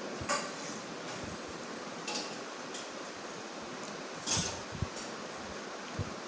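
Light clicks and rustles of hands handling a small plastic container, over a steady hiss of room noise; the loudest click comes a little past four seconds in.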